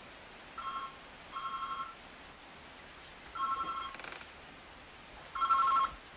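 Electronic telephone ringer ringing: four short two-tone trilling rings at uneven gaps, getting louder toward the end, before the call is answered.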